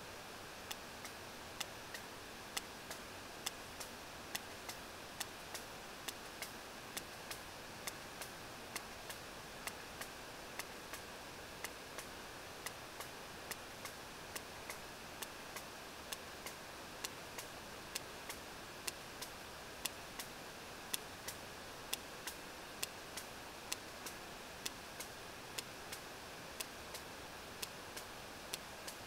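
Sperm whale echolocation clicks picked up by a deep-water hydrophone: sharp, regular clicks, about two a second, over a steady hiss.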